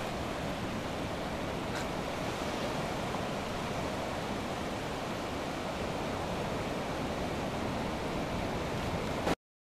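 Ocean surf washing up the beach, a steady rush of breaking waves with wind on the microphone. It cuts off abruptly near the end.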